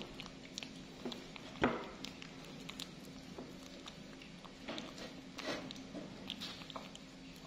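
Scattered small taps, clicks and rustles of baby monkeys handling and eating fruit, with one sharper knock a little under two seconds in. A faint steady hum runs underneath.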